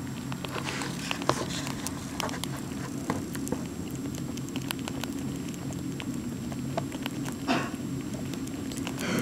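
Pet rats chewing pieces of walnut up close: a dense run of small crunching clicks. Paper bedding rustles twice near the end, over a steady low hum.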